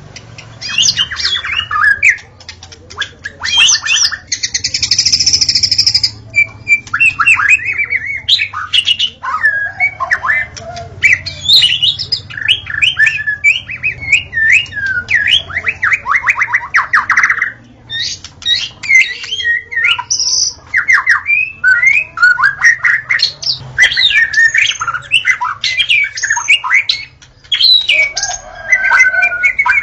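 White-rumped shama (murai batu) singing almost without pause, a varied song of quick trills, whistled phrases and harsh buzzy notes.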